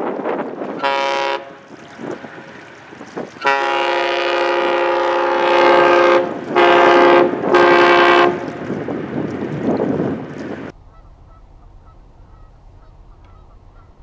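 Great Lakes freighter's horn blowing: a short blast about a second in, then a long blast of nearly three seconds and two short blasts, over wind buffeting the microphone. After about ten seconds it turns much quieter.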